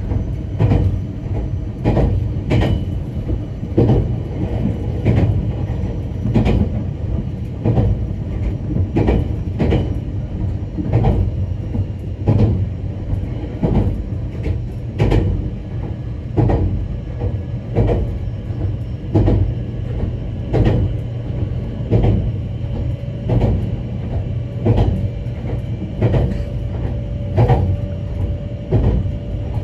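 Inside a former Odakyu HiSE Romancecar electric train (Nagano Electric Railway 1000 series) running at speed between stations: a steady low rumble with regular clacks of the wheels over the rail joints.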